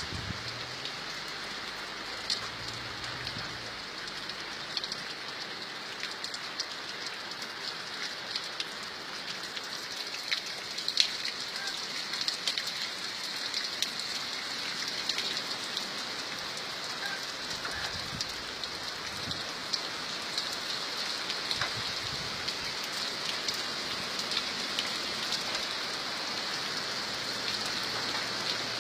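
Steady rain falling: an even hiss with many separate drops ticking on a surface.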